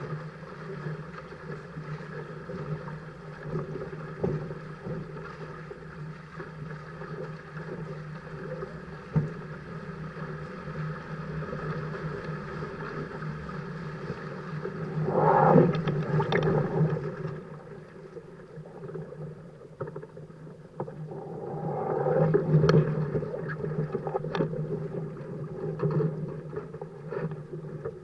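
Small sailing catamaran under way: water rushing and splashing along the hulls with a steady hum underneath, swelling into two louder surges of spray, one about halfway through and one near the end.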